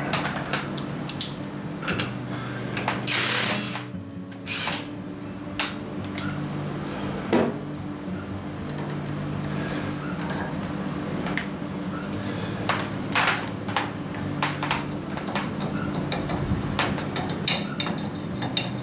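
Steady workshop machinery hum with scattered metal clicks and knocks as steel machine parts are handled and seated, and a short hiss about three seconds in.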